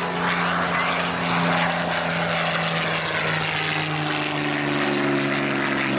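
Supermarine Spitfire's piston engine running steadily during a low flypast. The note falls in pitch about halfway through as the aircraft goes past.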